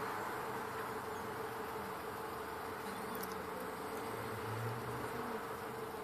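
City bus driving, heard from inside the cabin: a steady drone of engine and road noise with a constant buzzing hum.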